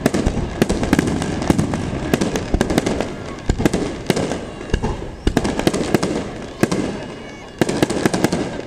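Aerial firework shells bursting in quick succession, many loud bangs a second over a steady rumble, with a short lull about seven seconds in before a fresh cluster of bangs.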